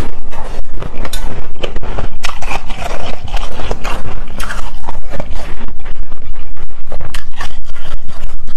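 Loud, close crunching as a soft, crumbly block of pink-dyed "mianmian" (fluffy) ice is bitten and chewed, a dense run of crackles throughout.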